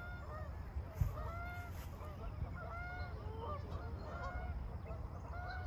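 Geese honking, many short calls from several birds overlapping one another.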